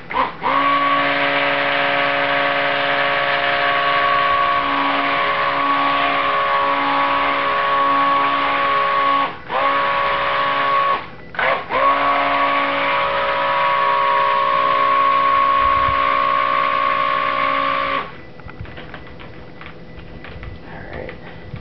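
Immersion stick blender running steadily, a motor whine with several fixed pitches, as it mixes cold process soap batter in a small plastic tub. It cuts out briefly twice around the middle and switches off a few seconds before the end.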